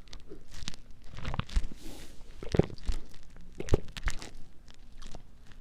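A person sipping beer from a glass and swallowing, with scattered small mouth clicks and gulps as he tastes it.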